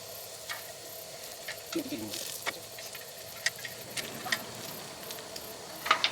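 Food frying in a pan with a steady sizzle, and scattered sharp clicks of utensils, the loudest two close together near the end.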